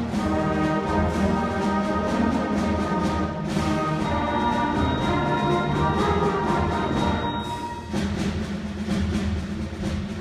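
Beginner school concert band playing a march, brass and drums together in sustained notes.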